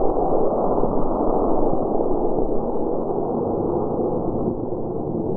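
Model rocket's D18 solid-fuel motor firing at launch, a steady, muffled rushing noise that eases slightly toward the end.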